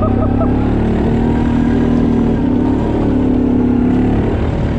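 A Gator utility vehicle's engine running steadily while it tows a second small vehicle through mud and grass, its pitch shifting only slightly.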